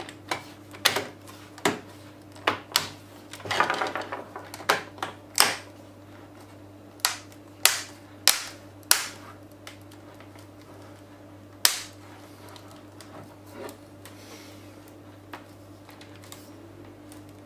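Plastic snap-fit latches of a Samsung NP300V5A laptop case clicking into place as the two halves are pressed together by hand: irregular sharp clicks, many in the first nine seconds and only a few after, with a brief scraping rustle of plastic about four seconds in.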